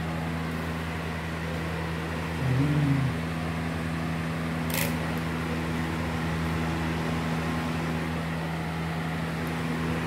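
Mondial desk fan running steadily with a low motor hum, fitted with a makeshift three-blade propeller cut down from a six-blade one. A brief louder low tone swells about two and a half seconds in, and a short hiss comes near the middle.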